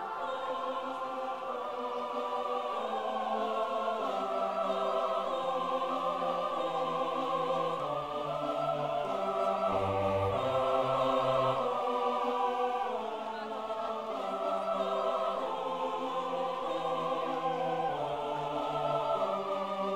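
Slow choral music: a choir singing long held chords that change slowly.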